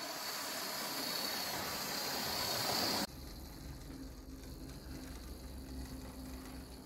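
00 gauge model train running along the track: a steady hiss of motor whine and wheel noise that grows louder for about three seconds, then cuts off suddenly to a quieter, low running hum.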